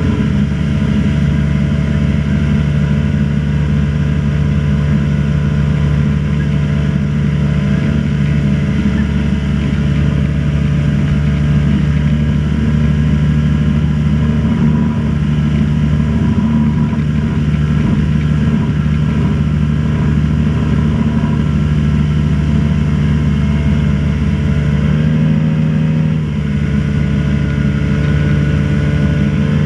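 Motorboat engine running steadily at speed, with a brief change in engine pitch near the end.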